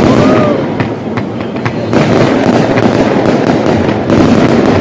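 Fireworks going off in a dense barrage of bangs and crackling, easing briefly about a second in before picking up again.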